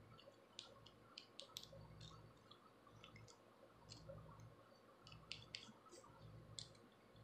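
Faint, irregular scratching clicks of a plastic rat-tail comb's pointed tail scraping across a scalp to lift dandruff flakes.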